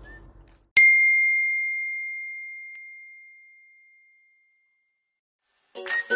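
A single bell-like ding sound effect: one sharp strike about a second in, ringing on one clear tone that fades away over about three seconds. Upbeat music starts near the end.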